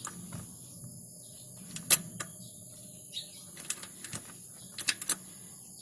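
A few short, sharp metallic clicks and taps as the car's spin-on oil filter is worked loose by hand, the loudest about two seconds in and a small cluster near the end, over a low steady hum.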